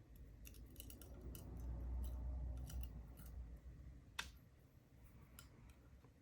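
Small metal clicks and taps from handling the disassembled Lockwood lock cylinder's pins and parts, over a low rumble of handling, with one sharper click about four seconds in.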